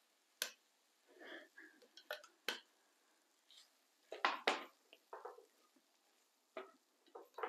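Faint, scattered clinks and scrapes of a serving utensil against a glazed earthenware pot as cooked rice is tipped in and stirred into the tempering; the loudest cluster comes about four seconds in.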